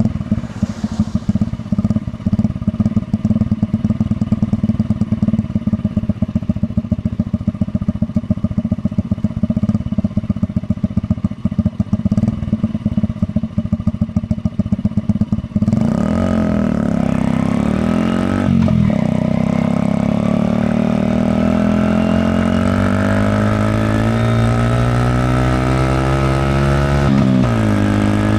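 Honda Magna 50's 49 cc four-stroke single running through its stock muffler with the baffle removed: a choppy, pulsing idle for about fifteen seconds, then the engine pulls away and revs up, its pitch climbing, dropping sharply twice at gear changes and climbing again.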